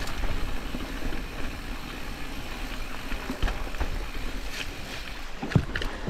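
Mountain bike (a Specialized Status 140) rolling along a dirt trail, a steady rumble of tyre noise and wind on the camera. A few sharp knocks of the bike rattling over bumps come near the end.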